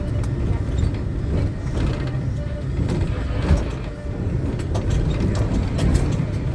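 Riding inside a combi minibus: steady low engine and road rumble, with scattered rattles and knocks from the body.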